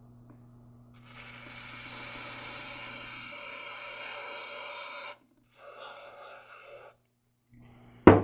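Aerosol carburetor cleaner sprayed through a thin extension straw into a small brass carburetor jet: a steady hiss for about four seconds, then a shorter second burst. A sharp knock near the end, over a low steady hum.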